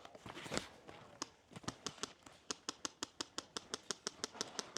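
Airsoft gunfire: a string of sharp, fairly faint shots, scattered at first, then a rapid, even string of about six a second from about two seconds in.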